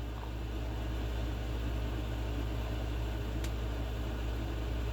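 Steady low hum with an even hiss, like a fan or appliance running, with one faint click about three and a half seconds in.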